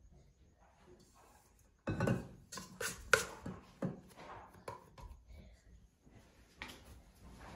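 A run of knocks and clatters from objects being handled, starting about two seconds in, loudest about a second later, with scattered quieter knocks after.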